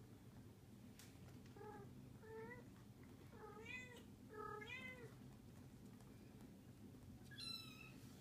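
Four-week-old kittens mewing: about six short, high, faint mews, several close together a few seconds in and one last one near the end.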